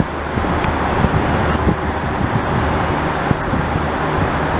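Steady city road traffic noise: a continuous rush of passing vehicles with a low engine hum underneath.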